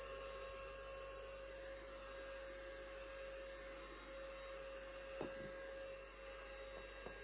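A small electric motor whirring steadily with a thin high whine, and two light clicks near the end.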